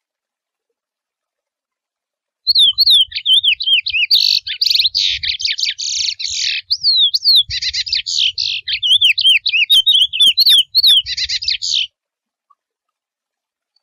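Male chestnut-bellied seed finch (curió) singing the wild 'mateiro' song type. Its one long song mixes clear down-slurred whistles with fast rattling trills, starting about two and a half seconds in and stopping shortly before the end.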